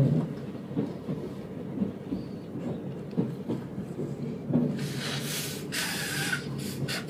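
Train carriage running along the track, heard from inside: a steady low rumble with small irregular knocks from the wheels and rails. About five seconds in, a loud hissing rush comes in for about two seconds, broken by short gaps.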